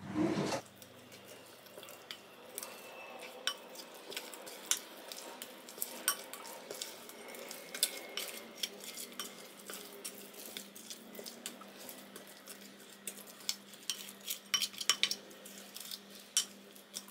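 Wooden spoon stirring a wet bread dough in a glass mixing bowl, with frequent sharp clicks and knocks of the spoon against the glass. A short thump right at the start.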